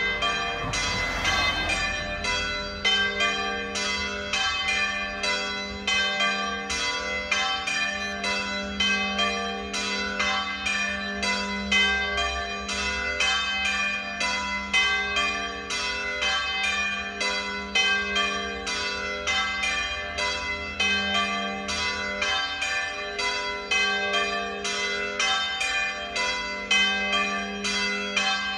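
A set of three swinging church bells ringing together in a full peal, in a steady, unbroken run of overlapping strokes, a few a second, each stroke ringing on.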